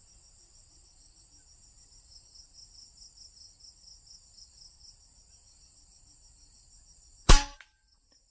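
Steady chirring of insects with an even, rapid pulse, then a single loud, sharp shot about seven seconds in: the hunter firing at a green pigeon.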